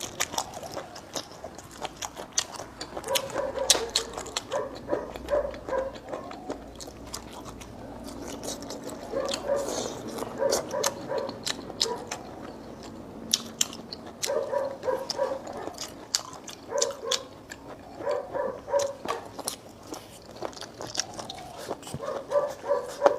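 Close-up eating sounds of a person chewing soft fermented tofu and rice, with sharp mouth clicks throughout and short pitched squeaks that come in quick runs of three to five.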